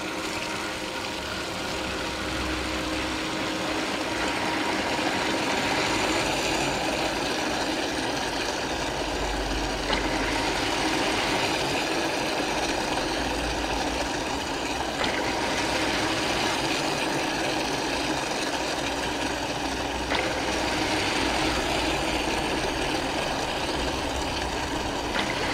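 Small automatic submersible bilge pump running steadily inside a plastic sump box while a garden hose sprays into it on a shower setting, the pump discharging water out through its outlet as fast as it comes in.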